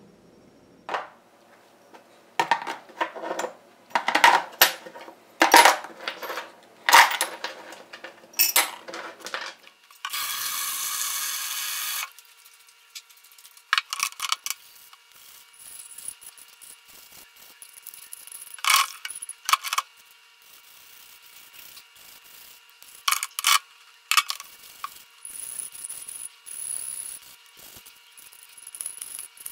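Irregular sharp metal clinks and knocks from handling the cast iron parts of a vintage Stanley No. 3 bench plane. A steady hiss follows for about two seconds and cuts off suddenly. Then the plane body is scrubbed with a small brush in a tub of soapy water, with rubbing, splashing and an occasional knock.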